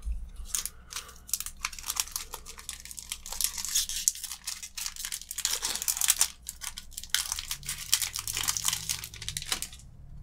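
A foil-lined Magic: The Gathering booster pack wrapper being torn open and crinkled by hand, a long run of sharp crackles and rustling that stops just before the end.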